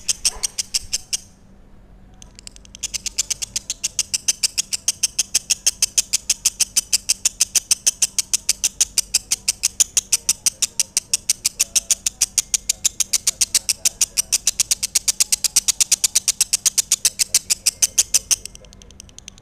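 Lovebird singing a long, fast, even run of high-pitched chirps, several a second. There is a brief pause about a second in, and the run stops shortly before the end.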